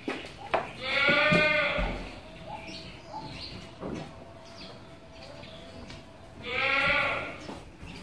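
A goat bleating twice, each bleat about a second long, the second coming about five and a half seconds after the first.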